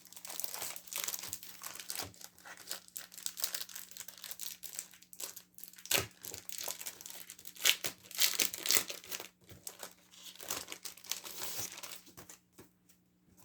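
Crinkly packaging on a pack of linen cardstock being handled and torn open by hand: irregular crinkling and tearing, with a sharp click about six seconds in and a louder stretch near the middle.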